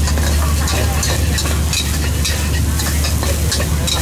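Metal spatula scraping and striking a steel wok as rice is stir-fried, with sharp scrapes two to three times a second over a steady low hum.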